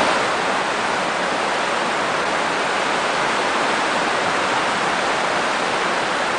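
Waterfall sound effect: a steady rush of falling water.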